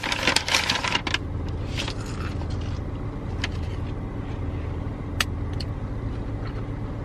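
Car engine idling, heard from inside the cabin as a steady low hum. Rustling and clicking in the first second, then a few single sharp clicks.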